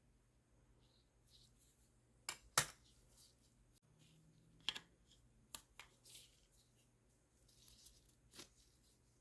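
Scattered sharp clicks and light knocks of tools and parts being handled while an espresso machine is taken apart, with a brief rustle or two between them; the loudest is a double click about two and a half seconds in.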